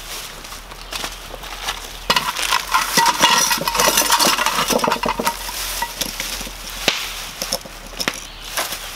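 Plastic bag crinkling as it is handled, loudest from about two to five seconds in, followed by a few sharp clicks.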